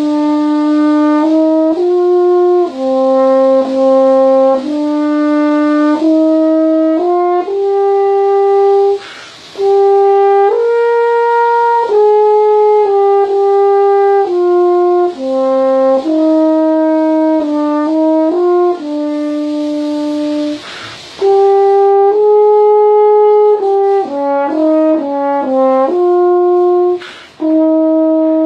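1930s PanAmerican French horn, a copy of the Conn 6D, played solo: a melody of held notes moving up and down in steps. The playing breaks off briefly three times between phrases.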